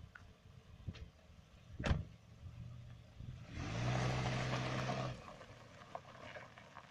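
A 2001 Chevrolet Cavalier's four-cylinder engine idling, with a car door slammed shut about two seconds in. Then the engine pulls for about a second and a half as the car drives forward across gravel, its tyres crunching, before it settles back to a quiet idle.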